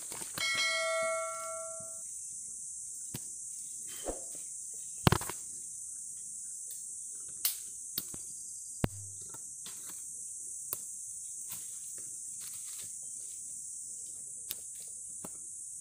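Steady high-pitched buzzing of insects, with a bell-like ringing tone lasting about a second and a half near the start. Scattered short knocks follow, the loudest about five seconds in.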